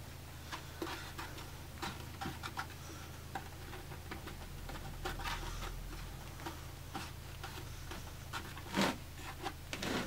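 Fingers pressing and smoothing roofing felt onto a wooden birdhouse roof: faint scattered rustles and light taps over a steady low hum, with a couple of louder knocks near the end as the birdhouse is handled.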